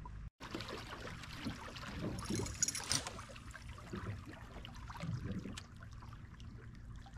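Water lapping and splashing against the hull of a bass boat, with wind on the microphone and a brief louder hiss of splashing about two and a half seconds in.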